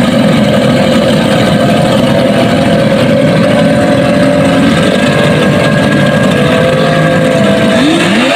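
Several racing outboard motors on small speedboats running at once while crews hold the boats, their engine notes overlapping. One engine revs up near the end.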